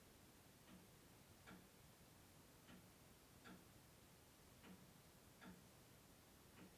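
Clock ticking faintly and evenly, an alternating tick-tock of about one beat a second, with no chime.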